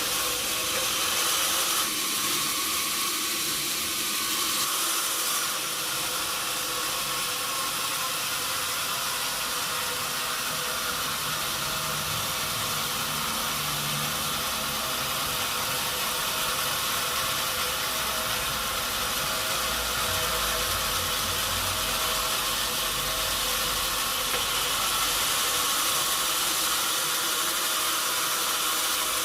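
Sawmill machinery running steadily: an even hissing noise over the hum of an engine.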